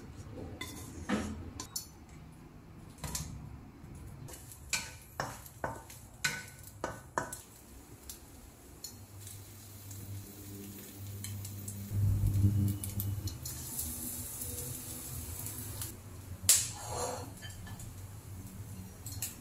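Wooden chopsticks and a spatula clinking and scraping against a nonstick wok and a ceramic bowl, with a run of sharp clicks in the first seven seconds. Later, diced luncheon meat frying in the wok, with a single louder knock about three seconds before the end.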